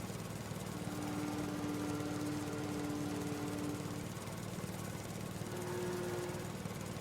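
Husqvarna riding lawn mower running steadily while cutting grass, with a faint whine that comes and goes over the engine hum.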